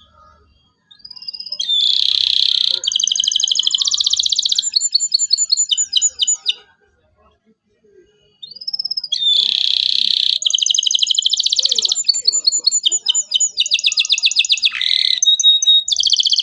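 Canary singing loudly in two long song phrases of rapid trills and chirps, with a pause of about two seconds between them.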